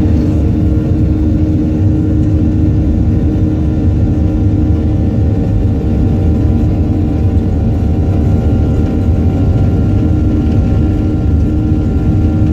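Airliner engines heard from inside the passenger cabin, running steadily at high power during take-off: a loud low rumble with a few held whining tones on top.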